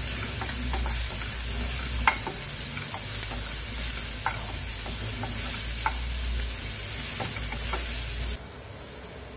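Chopped red onions sizzling as they fry in oil in a non-stick pan while a wooden spatula stirs them, with scattered light taps and scrapes of the spatula against the pan. About eight seconds in, the sound drops abruptly to a much quieter hiss.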